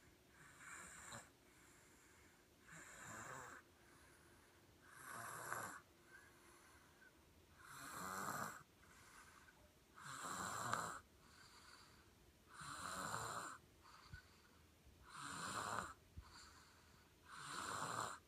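A baby snoring while asleep: eight snoring breaths, evenly spaced about every two and a half seconds.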